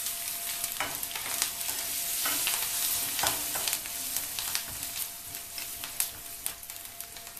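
Garlic cloves sizzling in hot oil with tempered mustard, fenugreek and fennel seeds in a metal kadhai, while a steel ladle stirs them with scattered clicks and scrapes against the pan. The sizzle eases a little in the last couple of seconds.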